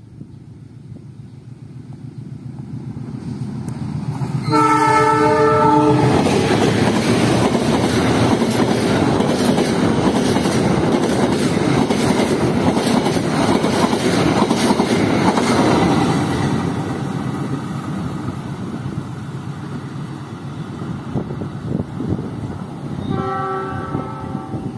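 The Argo Wilis passenger train, a diesel-hauled set of stainless-steel executive coaches, approaches and passes close by. Its locomotive horn sounds a chord for about a second and a half. The loud rumble and clatter of the coaches rolling past follows, then fades, and the horn sounds again near the end.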